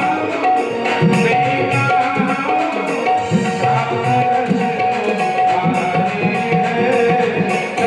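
Instrumental passage of a Hindu devotional bhajan: tabla playing a rhythm under a melody instrument holding steady notes. Some of the low drum strokes bend in pitch.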